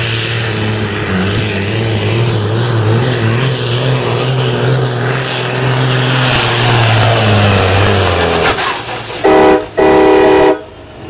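Diesel tractor engine running hard under load, its pitch wavering, then fading off about eight seconds in. Near the end, two loud horn blasts, a short one and then a longer one.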